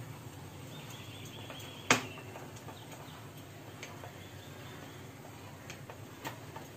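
Table knife cutting a soft steamed gram-flour and coriander cake on a ceramic plate, the blade clicking against the plate: one sharp click about two seconds in, then a few lighter ticks.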